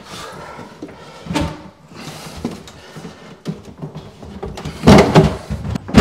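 Knocks and bumps of a wooden base kitchen cabinet being shifted and pushed into place against a wall. There is one knock about a second and a half in, and a louder cluster of bumps near the end.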